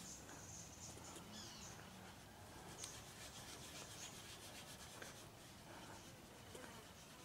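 Faint rubbing of a fingertip working scratch-remover polishing compound into car paint.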